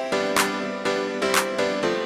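Background music: plucked-string notes over a steady light beat.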